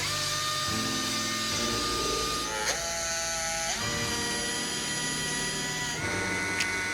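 Small electric motor of a power tool running with a steady whine. Its pitch drops briefly under load about two and a half seconds in, recovers a second later, and steps up again near the end, with a couple of sharp clicks.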